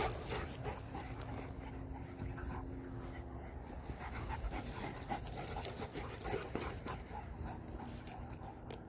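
Dogs panting as they play-wrestle on grass, with faint scuffling.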